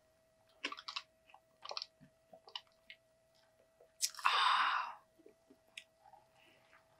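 Close-miked chewing and small wet mouth clicks as chicken nuggets are eaten and soda is sipped through a straw. About four seconds in there is a loud breathy exhale lasting about a second.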